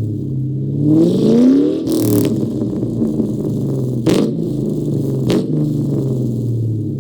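Ford Mustang GT's 4.6-litre V8 exhaust, fitted with an off-road X-pipe, idling with a quick blip of the throttle about a second in that rises and drops back to idle. A few sharp cracks come about two, four and five seconds in.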